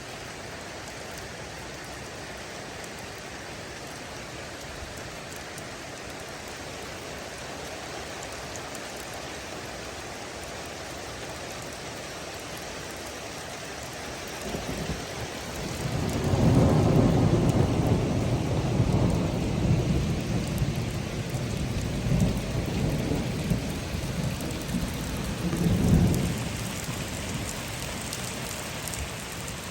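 Steady rain falling, then about halfway through a long low roll of thunder builds, rumbles for about ten seconds with a last louder peak, and fades away.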